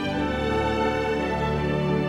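Background instrumental music of held notes and sustained chords, changing chord at the start.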